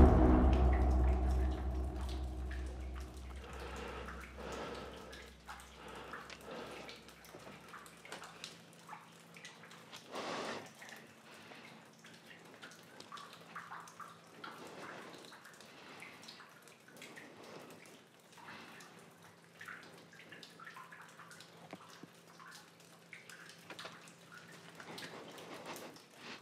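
The tail of a music cue with timpani dies away over the first few seconds. Then come faint, irregular water drips over a low steady hum.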